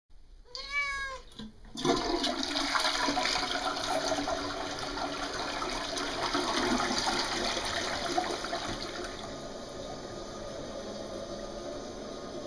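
A cat gives one short meow, then about two seconds in a toilet is flushed: water rushes loudly down the bowl, easing to a steadier, quieter hiss near the end.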